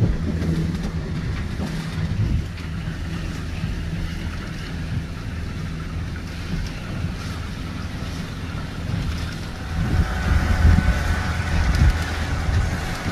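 Shanty boat's motor running steadily underway, with wind buffeting the microphone and water washing past. About ten seconds in it grows louder and a higher whine joins in.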